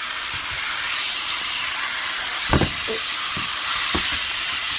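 Oil sizzling steadily in a frying pan as a seitan roast browns. A few low knocks come about halfway through as utensils turn the roast.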